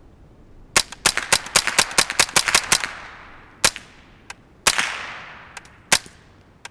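Smith & Wesson M&P 15-22 .22 LR rifle, suppressed with a Dead Air Mask, firing a rapid string of about a dozen shots in two seconds, then three more spaced shots, each trailing off in an echo.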